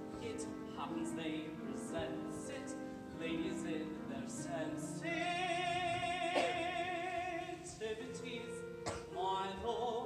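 Singing with instrumental accompaniment in a live stage musical, heard from the audience. A voice holds a long note with wide vibrato from about five to eight seconds in.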